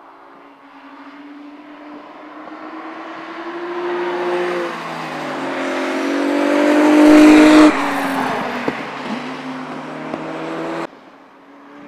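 Honda NSX's twin-turbo V6 accelerating past, its engine note climbing in pitch and loudness to a peak, then dropping suddenly and falling in pitch as the car moves away, with a few sharp pops.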